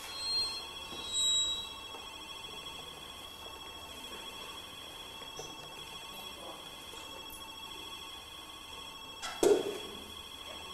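Long stretched string of a sound installation, fitted with a tin-can resonator, sounding a steady ringing drone of several held high tones, with two brief brighter notes near the start. A single loud knock comes about nine seconds in.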